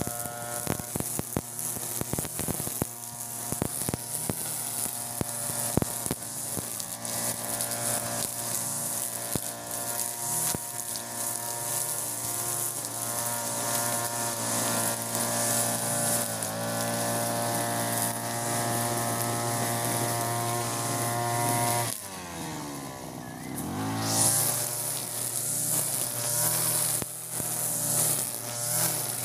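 Europa Hilt EH4300 (TB43) backpack brush cutter's two-stroke engine running at steady high revs, spinning a 2.4 mm nylon-line trimmer head through grass, with scattered sharp ticks in the first six seconds. About 22 seconds in, the throttle is let off and the engine note drops, then it revs back up to cutting speed about two seconds later.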